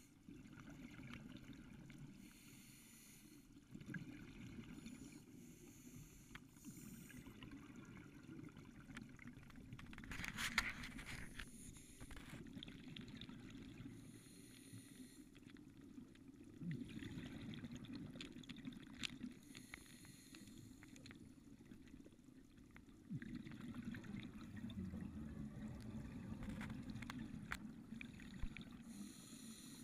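Scuba regulator breathing, heard faintly underwater: a short hiss on each breath every few seconds, and a low bubbling rumble of exhaled air that swells and eases. The loudest burst comes about ten seconds in.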